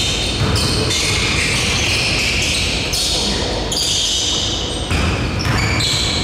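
Basketball bouncing on a gym court during play, with the general noise of a game around it.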